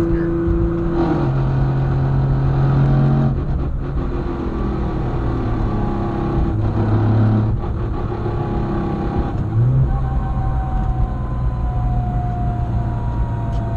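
2013 Nissan GT-R heard from inside the car while driving: the twin-turbo V6 and dual-clutch transmission running, the engine note stepping in pitch a few times, with higher whining tones that slowly fall. The built transmission makes a grinding, fluttering noise from the rear, worst on deceleration, which the owner puts down to something loose or broken in the transmission.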